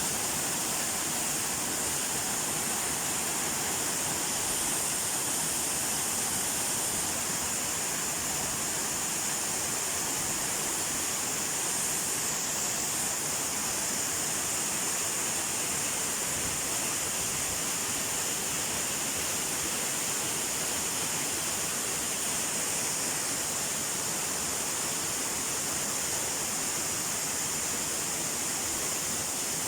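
Waterfall rushing: a steady, unbroken hiss of falling water that stays at the same level throughout.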